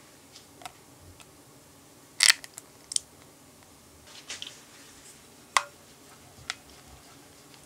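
Wire balloon whisk clinking against a glass mixing bowl while stirring soft cheesecake batter with dissolved gelatine: a scattering of irregular light clinks, the loudest about two seconds in and again about five and a half seconds in.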